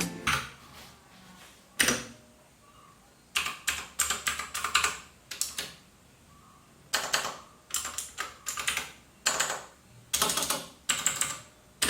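Typing on a Cosmic Byte CB-GK16 Firefly mechanical gaming keyboard: the clicky key switches clack. There are a couple of single presses near the start, then quick runs of keystrokes with short pauses between them.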